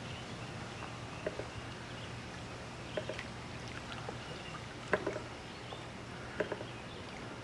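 Muffled underwater sound in a swimming pool, picked up by a submerged camera: a faint steady low hum with a few short soft clicks spaced a second or two apart.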